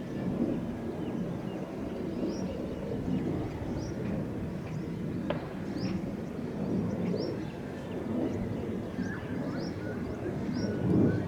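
Outdoor ambience: a steady low rumble with a small bird chirping over it, short rising chirps about once a second, and a single sharp click about five seconds in.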